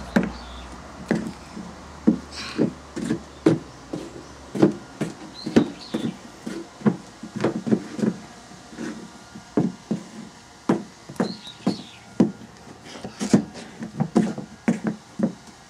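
Irregular wooden-sounding knocks and taps, about two a second, with a few faint high chirps.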